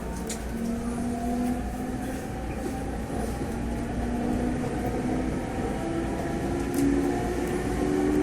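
E217 series train accelerating, its unrenewed GTO VVVF inverter and traction motors whining in held tones that jump up and down in pitch in steps. The rail running noise grows slowly louder.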